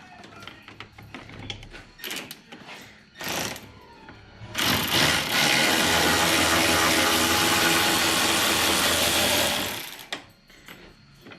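A handheld power tool runs steadily for about five seconds, starting a little after the middle and then stopping, as it spins out a bumper mounting bolt. A few short clicks and rattles come before it.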